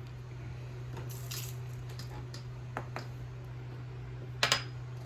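Handling of a rechargeable electric herb grinder, presumably its lid being taken off: a faint scrape, two light clicks, then a louder double click near the end, over a steady low hum.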